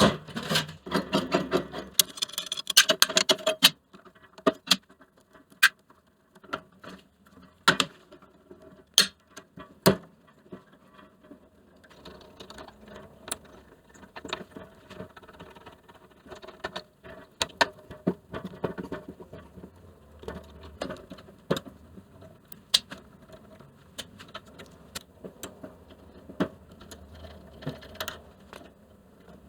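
Hand tools and metal parts clicking, clinking and knocking as a bandsaw is taken apart. A dense run of rapid scratchy clicking comes in the first few seconds, then scattered sharp clicks and knocks.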